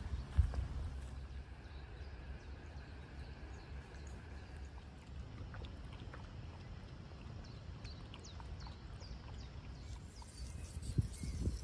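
Quiet outdoor ambience: a low rumble throughout, a single thump just after the start, and faint short bird chirps in the second half.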